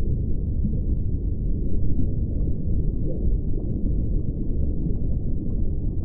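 Steady, muffled underwater rumble picked up by a camera held under the water, with no distinct events.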